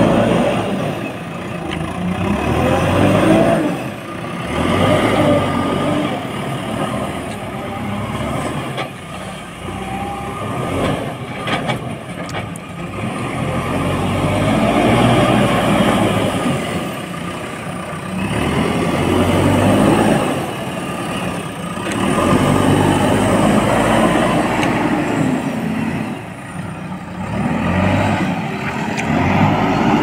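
JCB 4DX backhoe loader's diesel engine working under load, revving up and easing off in repeated cycles as the front bucket digs into the sand pile and lifts. A short cluster of knocks about a third of the way through.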